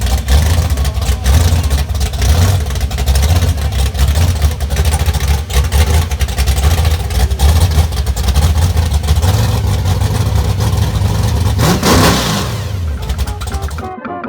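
Loud car engine running with a heavy low rumble and crackle. A falling pitch sweep comes near the end as the engine revs down or passes by, then the sound cuts off suddenly.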